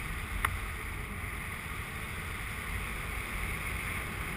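Airflow buffeting the microphone of a paraglider pilot's camera in flight: steady wind noise with a low rumble, and one brief click about half a second in.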